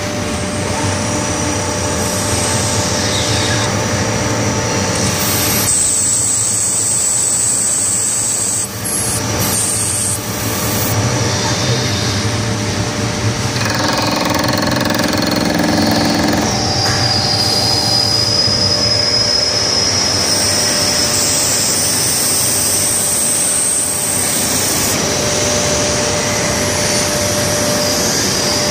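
CNC lathe running and turning a metal workpiece: a steady machine noise with a high, even whine from the spindle drive and the cut.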